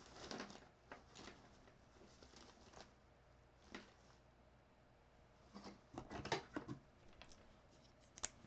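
Faint scratching of a pen drawing on paper in short strokes, with a cluster of strokes about six seconds in.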